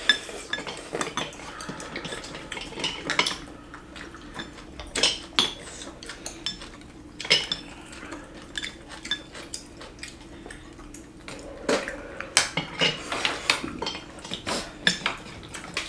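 Chopsticks, spoons and bowls clinking and tapping against a seafood hot-pot pan and small bowls as people eat: many short, irregular clicks over a faint steady hum.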